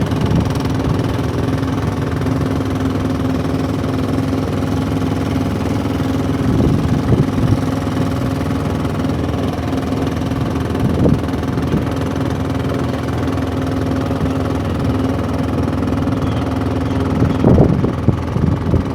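Fishing boat's engine running steadily at an even speed, with a few brief louder knocks at about 7, 11 and 17 seconds.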